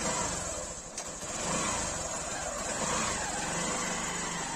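Motorcycle engine running at low speed as the bike sets off.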